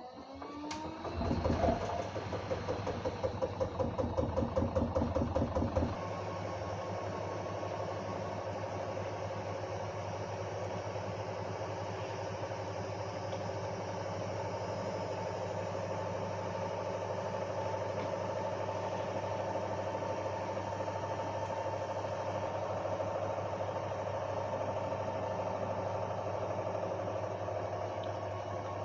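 LG WD-1054FB front-loading washing machine's drum motor speeding up with a rising whine, the drum thumping about three times a second for a few seconds, then turning at a steady speed with an even motor hum.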